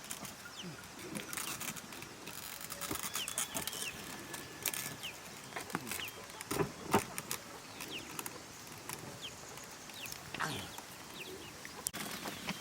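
Birds chirping again and again in short, quick notes, over scattered knocks and scuffs, with one louder knock about seven seconds in.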